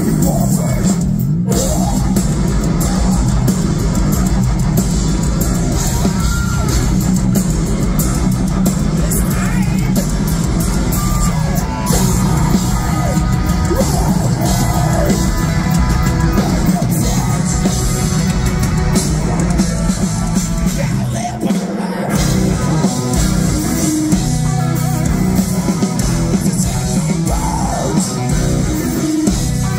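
Live heavy metal band playing loud: distorted electric guitars and a drum kit under a singer's vocals and yells, with a brief drop in the low end about two-thirds of the way through.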